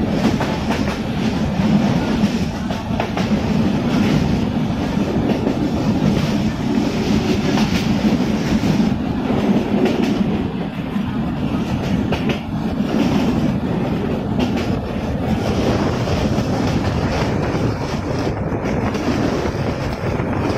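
Moving local passenger train heard from a carriage window: a steady rumble and clatter of the wheels running on the rails.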